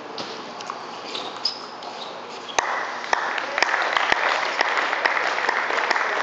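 Table tennis ball clicking off bats and table in a short rally. About two and a half seconds in, applause breaks out, with loud single claps about twice a second.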